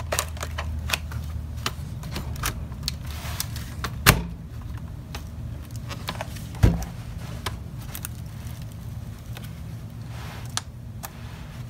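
Plastic case of a PowerBook 1400 laptop being handled and its lid opened: scattered light clicks and knocks, with two louder thumps about four and six and a half seconds in, over a steady low hum.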